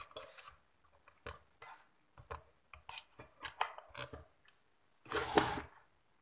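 Hands handling a populated amplifier circuit board: irregular small clicks, taps and crackles as the board is gripped and turned, with a longer, louder rustle a little after five seconds in.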